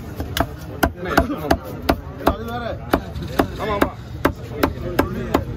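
Heavy fish-cutting knife chopping fish into chunks on a wooden log block: a steady run of sharp chops, about three a second.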